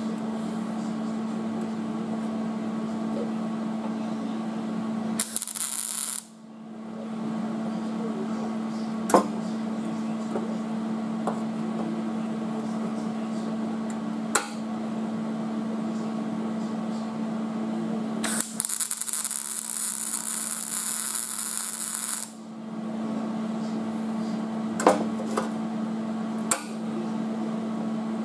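MIG welder laying plug welds through drilled holes in a steel rocker panel: a short burst of arc crackle about five seconds in, and a longer one of about four seconds later on. Between the welds there is a steady hum, with a few sharp clicks.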